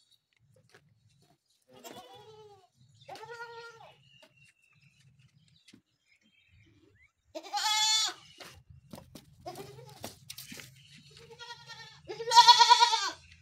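Makhi Cheeni goat kids bleating: about six separate wavering bleats, the two loudest about halfway through and near the end.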